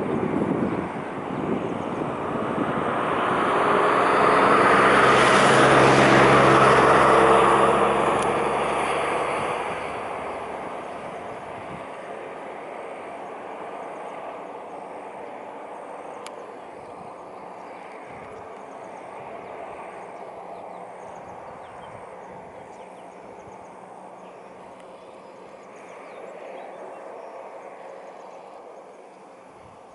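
A motor vehicle's engine passing by. Its sound swells over the first few seconds, is loudest about six seconds in, then fades away, leaving a quieter steady rumble.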